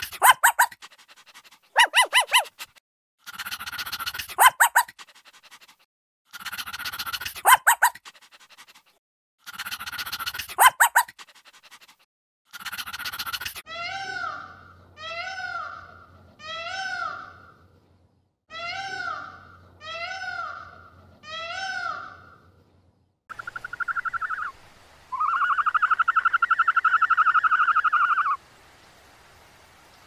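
A small white terrier barking in quick clusters, five bursts two to three seconds apart. Then a peacock calling: six rising-and-falling calls about a second apart, in two sets of three. After that comes a short call and a longer, pulsing call of about three seconds.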